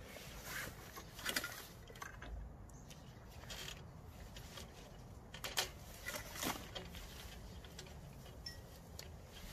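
Scattered small clicks and rustles of pliers and electrical cable being handled while wiring a streetlight ballast.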